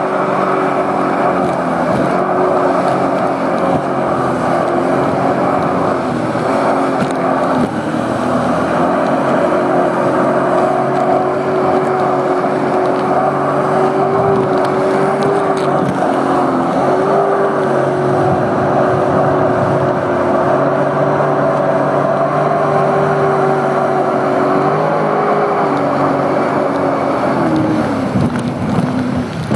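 Sea-Doo personal watercraft engine and jet drive running steadily while under way, its engine note holding one pitch with a couple of brief dips, then falling in pitch near the end.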